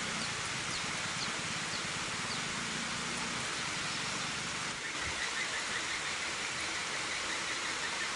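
Steady rushing of flowing water at a dam. Faint high chirps sound over it, and a fast row of faint ticks runs from about halfway through.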